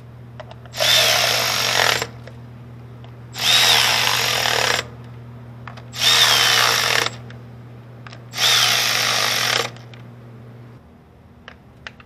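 Milwaukee M12 Fuel cordless ratchet spinning in four bursts of about a second each on the ignition coil bolts, each starting with a short rising and falling whine as the motor spins up. A few light clicks follow near the end.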